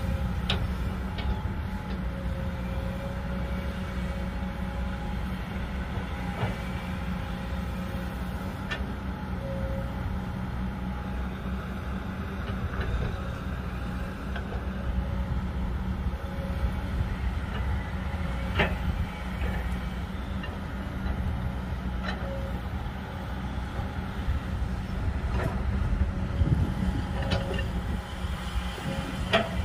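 Kobelco SK200 XD hydraulic excavator running steadily while digging, its diesel engine humming low under a faint wavering hydraulic whine. A few sharp knocks come from the bucket and arm, about four times.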